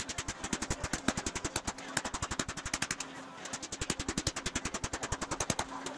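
A mallet rapidly and evenly beating an aluminium sheet over a sandbag, dishing and shaping a curved body panel, with a brief break a little past the middle.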